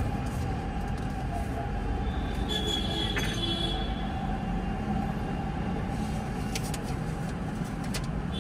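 Steady low rumble of engine and road-traffic noise heard from inside a stationary car, with a few faint clicks about six and a half seconds in.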